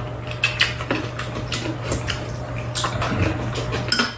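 Metal spoons scraping and tapping against bowls while eating, a scatter of short clicks and scrapes over a steady low hum.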